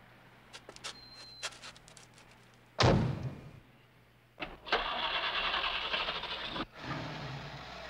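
A few light clicks, then one loud gunshot about three seconds in. About a second and a half later a car engine starts and runs for about two seconds, cutting off suddenly.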